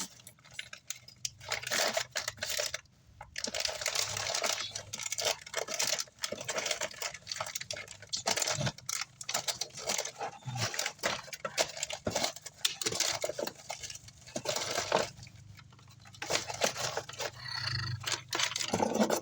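Rummaging through bins and bags of loose electronic parts while searching for a replacement switch: irregular rustling, with clicking and rattling of small parts.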